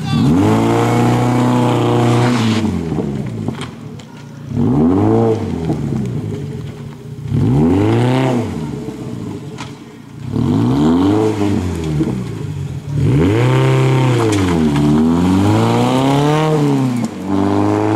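Renault Clio rally car's engine revving hard through corners. It rises in pitch under acceleration and drops off as the driver lifts, about six times, with one double rise-and-fall near the end.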